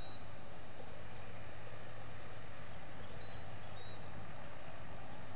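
Quiet outdoor ambience: a steady hiss with a low hum, and a few brief, faint high chirps from birds.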